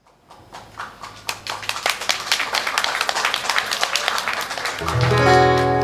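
A small audience clapping, rising in loudness over the first few seconds. Near the end a steel-string acoustic guitar chord rings out over it.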